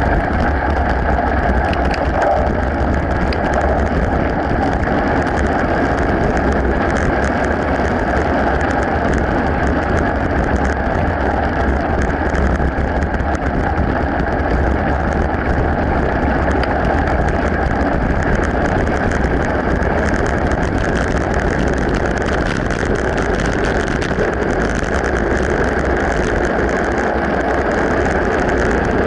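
Mountain bike rolling steadily over a gravel path, its tyres crunching with many small ticks and rattles, under a constant wind rumble on the microphone.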